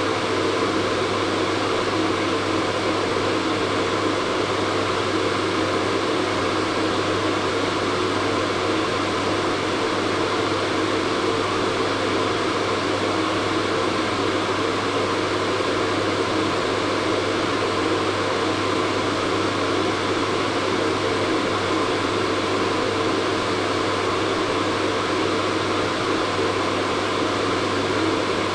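Hair dryer running steadily: a continuous rush of air over a low motor hum.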